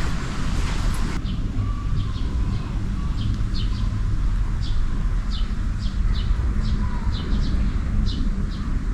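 Small birds chirping repeatedly, short falling notes two or three a second, over a steady low outdoor rumble.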